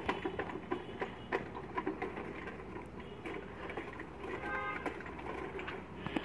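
Mango leaves and twigs rustling, with irregular small clicks and knocks, as a long wooden pole tipped with a cut plastic bottle is pushed up through the branches to pick the fruit.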